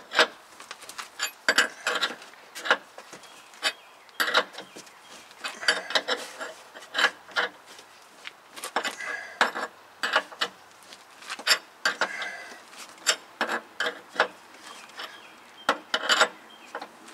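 Ratchet wrench clicking in short, irregular bursts as it cranks a ball joint press screw, pushing a new upper ball joint into the control arm.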